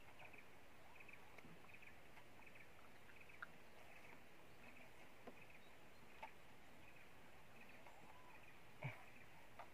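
Near silence with faint, steady high-pitched chirping of swamp wildlife, plus a few faint clicks and a soft thump of water near the end as a fish is handled in a landing net.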